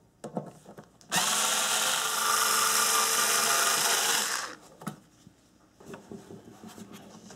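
Cordless drill/driver backing out a screw that holds an HID headlight ballast. It runs at a steady whine for about three and a half seconds, starting about a second in, then stops, leaving a few small clicks of handling.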